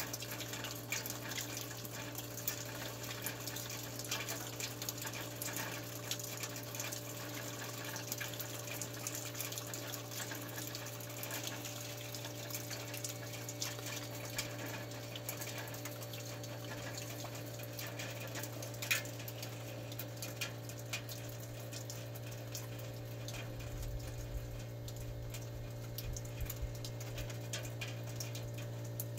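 Meltwater trickling and dripping from the drain outlet of a Panasonic WC09H3E3 heat pump's outdoor unit during its de-icing cycle, over the unit's steady low hum. The trickling thins out in the second half, with one sharp click about two-thirds of the way through and a low rumble near the end.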